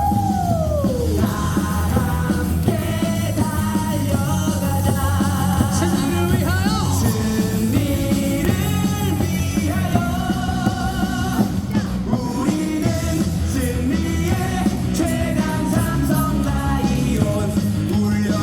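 Rock song with a singer, a steady beat and held, wavering vocal notes.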